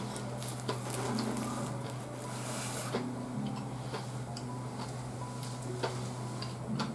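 Close chewing and mouth sounds of a person eating a nori-wrapped rice ball, with scattered small clicks, over a steady low hum.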